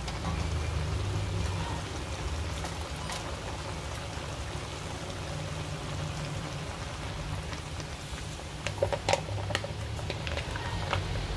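Coconut milk pouring from a carton onto squash, string beans and pork in a stainless steel pan, a steady liquid pour over a low hum, with a few sharp knocks about nine seconds in.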